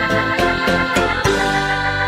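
Background music: an upbeat tune with a regular beat that settles into a long held chord a little past halfway.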